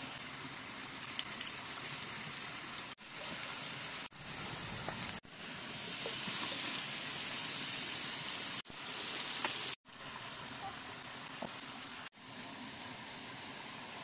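Horse mackerel sizzling as they fry on a grill pan over charcoal: a steady hiss, heard in a series of short clips with abrupt cuts. It is loudest in the middle stretch.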